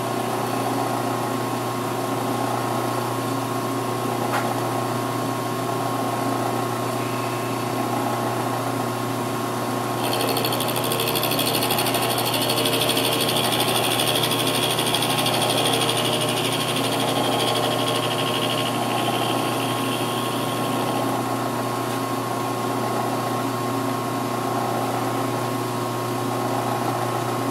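Benchtop milling machine running steadily with its motor humming. From about ten seconds in until about twenty seconds in, the cutter bites into a wooden block, adding a higher hissing cutting sound as a notch is milled toward depth.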